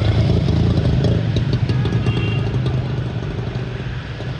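Auto-rickshaw engine running close by with a steady low drone that slowly fades.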